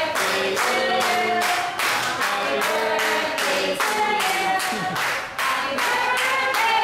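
A group of people singing a birthday song together while clapping along in a steady beat.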